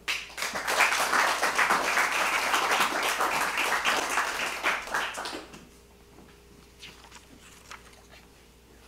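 Audience applauding for about five seconds, then dying away, with a few faint knocks and rustles after it.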